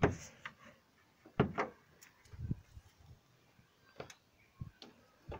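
Several short, faint knocks and clicks spread across a few seconds, from the ute's bonnet being handled and raised.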